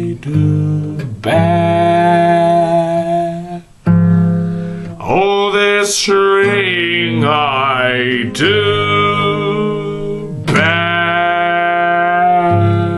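Male voice singing an Irish folk ballad in long held notes over strummed acoustic guitar, with a wavering run of notes near the middle.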